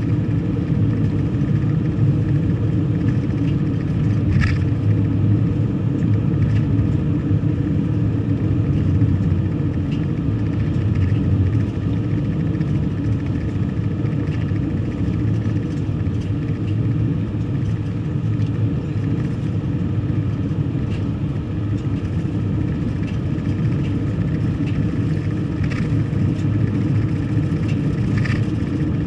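A car driving, with steady engine and road rumble and a few faint ticks.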